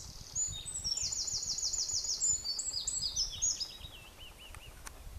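Cetti's warbler singing a burst of high, quickly repeated notes, with a fast run of about eight alike notes in the middle. It ends in a few lower, falling notes that stop about four and a half seconds in. A low rumble of ambient noise runs underneath.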